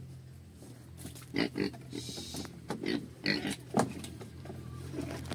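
Pigs grunting and oinking at the trough as feed is ladled in: a string of short, irregular calls in the second half, over a steady low hum.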